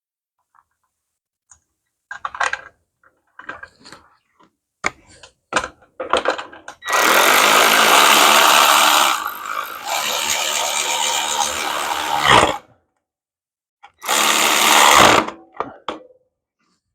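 A power tool running in two loud bursts: a long one of about five seconds that eases slightly partway through, and a shorter one of about a second. Scattered small clicks and knocks from handling parts come before them.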